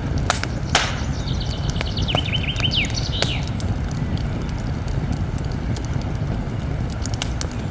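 Campfire crackling with scattered sharp pops over a steady low rumble. A bird calls from about a second in for two seconds: a run of quick high chirps ending in a couple of falling notes.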